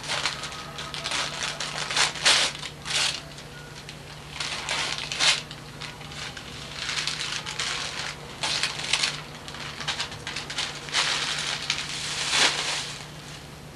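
Gift wrapping paper being torn and crumpled during unwrapping, in irregular crackling rushes, over a steady low hum.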